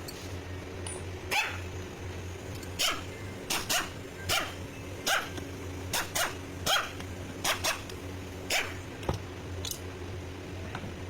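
A dog barking about a dozen times in short, irregular barks, over a steady low hum.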